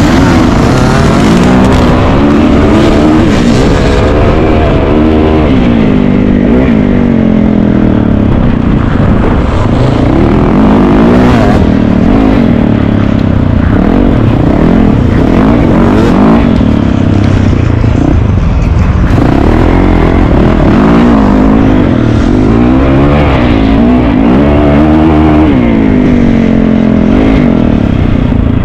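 Dirt bike engine being ridden hard off-road, revving up and down over and over, its pitch rising and falling every second or two as the throttle opens and closes.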